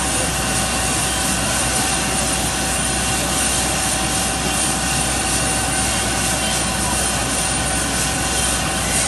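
MD 902 Explorer twin-turbine air ambulance helicopter running on the ground with its rotor turning. It makes a steady turbine whine over an even rotor and engine rush.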